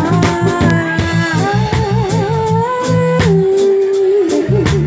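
Live band music with a woman singing lead into a microphone, over bass notes and a steady drum beat. In the middle she holds long notes with vibrato.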